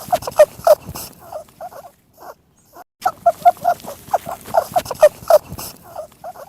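Rabbit squeaks from a sound-effect recording: quick, short, high squeaky calls, several a second. The same run of calls is played twice, with a brief break about 3 seconds in.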